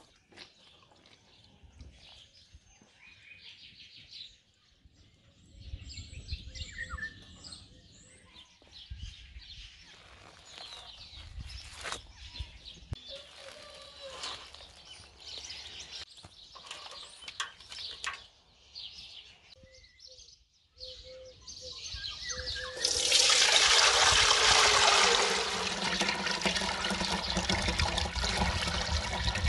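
Scattered light handling clicks with birds chirping in the background, then about 23 seconds in a loud steady rush of pouring liquid starts, easing a little after a few seconds but running on.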